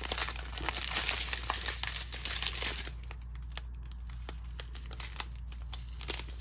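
Small plastic bags of diamond-painting drills crinkling as they are handled, busy for about the first three seconds, then sparser rustles and clicks.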